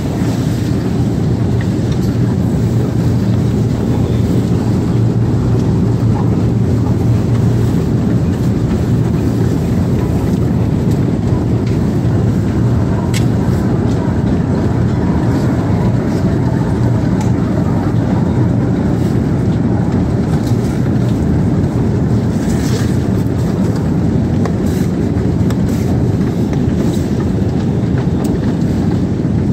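Escalator running steadily: a continuous low mechanical hum and rumble, with a few faint clicks.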